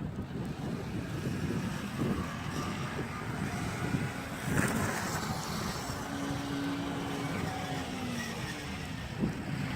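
Wind buffeting the microphone as an irregular low rumble, with a short swell about four and a half seconds in and a faint steady hum for a couple of seconds past the middle.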